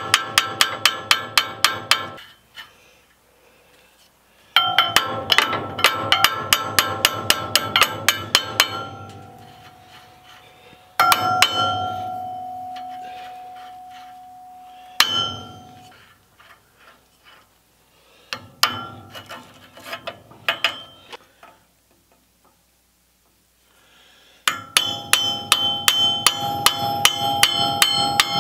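Hammer blows on a steel punch driven against the rusted hub of a cement mixer's spoked handwheel, in bursts of about four or five ringing metal strikes a second, with pauses between them. One blow, about eleven seconds in, rings on for several seconds. In the last burst the hammer drives a cold chisel into the split hub.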